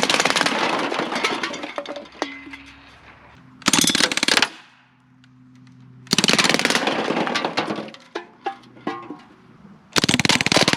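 Crosman DPMS SBR CO2-powered full-auto BB rifle firing in rapid bursts with its blowback action. There are four bursts of fast, evenly spaced shots, with scattered single clicks between them.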